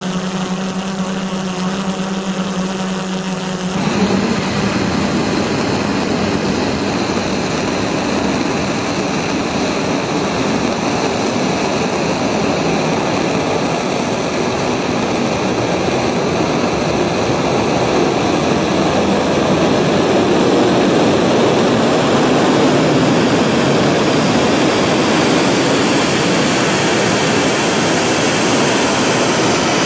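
A drone's propellers hum steadily at first. About four seconds in, a steady rocket roar begins suddenly and runs on, swelling a little: the 7-tonne-class liquid-propellant rocket engine of the Korean launch vehicle's third stage, firing on its test stand.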